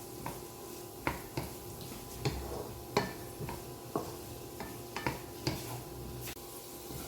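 Vegetables being stir-fried in a pan: a cooking utensil clicks and scrapes against the pan about every half second over a steady sizzle.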